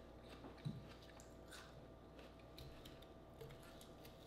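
Near silence with faint crisp crunches and clicks of someone biting and chewing apple slices, and a soft knock under a second in.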